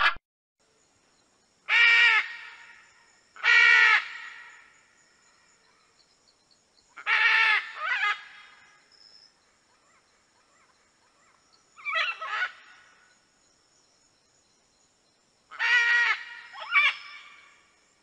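Macaw squawking: five bouts of loud, harsh, raspy calls every few seconds, two of them followed by a second shorter squawk.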